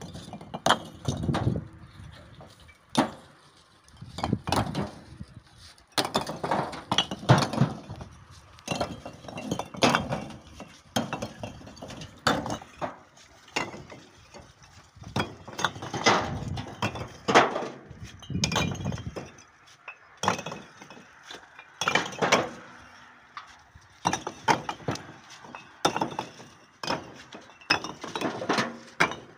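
Fired bricks clinking and clattering against each other in irregular bursts of sharp knocks, as a tractor trolley is loaded with bricks.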